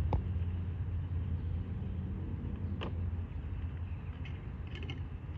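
Steady low rumble with sharp clicks from a bee-feeder jar and its lid being handled: one just after the start, one near three seconds, and a few small ones near the end.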